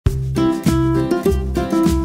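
Intro music: a bright melody with a new note about every half second over a steady bass line.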